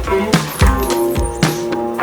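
Background music with a steady drum beat and pitched instrumental notes.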